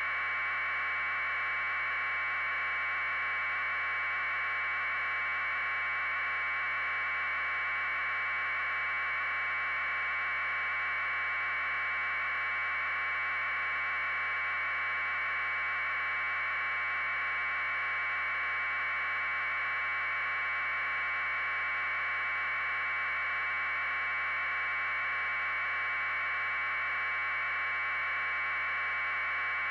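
Steady electronic hiss confined to a narrow midrange band, unchanging and with no other sound: noise on the audio track of silent aerial footage.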